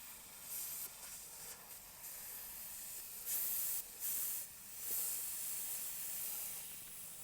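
Air hissing out of a punctured tubeless tractor tire in several bursts as a reamer is worked into the hole.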